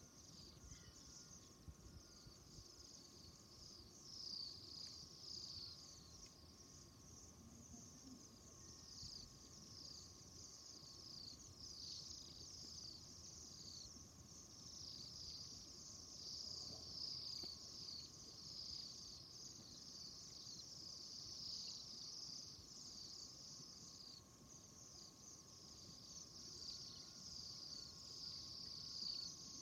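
A flock of small birds chirping continuously and faintly, many short high chirps falling in pitch and overlapping one another.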